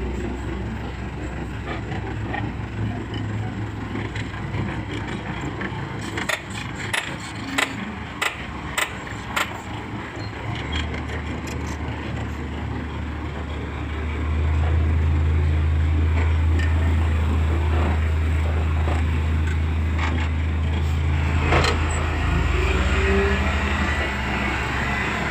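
Heavy construction-vehicle diesel engine running with a steady low hum that gets markedly louder a little past halfway. A handful of sharp knocks come in quick succession in the first half, with one more near the end.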